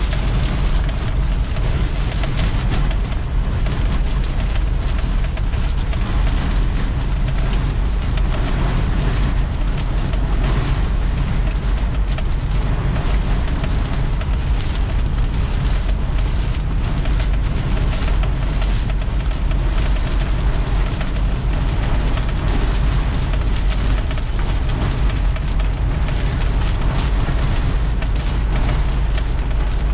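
Steady rain on a moving vehicle, heard from inside the cabin over a constant low road and engine rumble.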